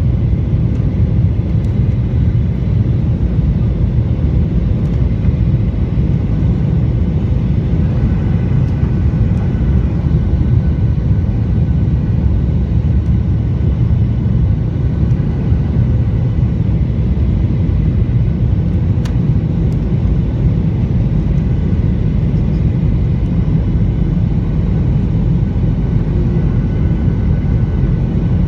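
Airliner cabin noise in flight: a loud, steady low rumble of engines and airflow with a faint steady hum above it, unchanging throughout.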